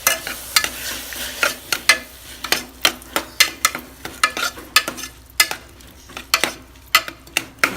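A spoon stirring and scraping in a pressure cooker pan, giving an irregular run of sharp clicks two to three times a second, over a light sizzle of onion, tomato and ginger-garlic paste sautéing in oil.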